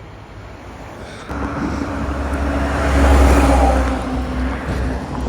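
A bus passing close by, its diesel engine hum and tyre noise rising suddenly about a second in, loudest near the middle, then fading as it drives away.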